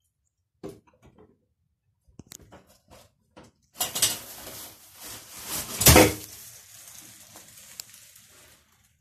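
A few sharp clicks, then a glass porch door opening and a rough rustling, scraping noise with one loud thud about six seconds in. This is sewage-soaked wipes, sanitary towels, rags and a magazine being dumped onto a laminate floor.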